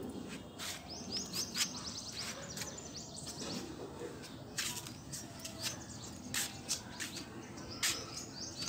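Small birds chirping in quick runs of short high calls, with scattered sharp clicks.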